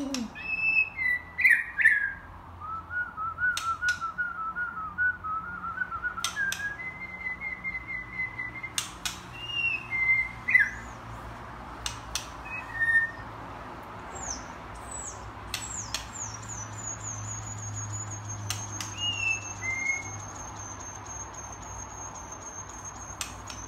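White-rumped shama singing: a varied run of clear whistled phrases, slurs and a quick trill, broken by sharp clicks. The song ends in a long, thin, high whistle held for about seven seconds.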